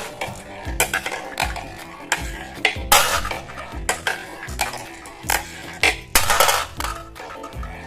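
Marbles clicking and clattering along a toy marble run: many sharp knocks at irregular intervals, busiest about three seconds in and again near six seconds, over background music.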